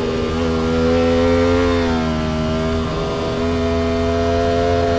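Sport bike's engine heard from on board, running loud and steady through a corner. The note sags a little, breaks off briefly about three seconds in, then rises again.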